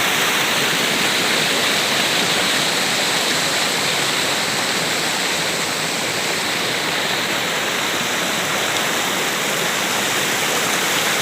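Steady rush of a waterfall, water pouring down its falls without a break.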